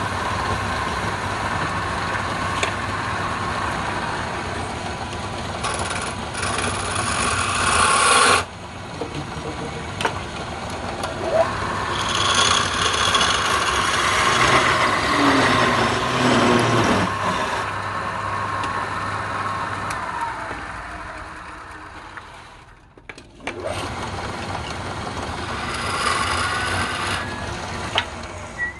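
Wood lathe running while the spinning workpiece is rubbed with a wad of fibre and then cut with a flat metal tool, giving grating stretches over the motor's hum. About twenty seconds in the motor's whine falls away as the lathe winds down, then it starts up again a few seconds later.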